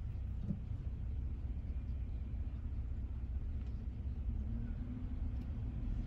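SUV engine running, a low steady rumble with a faint hum over it.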